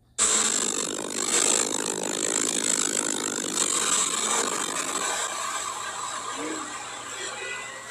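Cabin noise of a 2021 Porsche 911 Carrera 4S (992) at speed on a rain-soaked track: a loud hiss of tyre spray and road noise over the twin-turbo flat-six, cutting in suddenly at the start and easing off gradually as the car slows for a corner.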